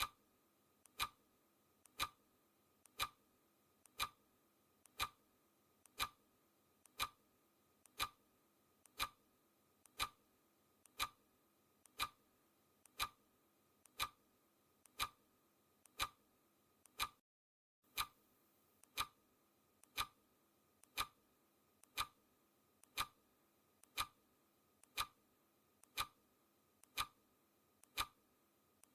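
Clock-style ticking sound effect: a sharp, loud tick once a second with a much softer tick halfway between, each with a short ringing note. The ticking cuts out completely for about half a second past the middle.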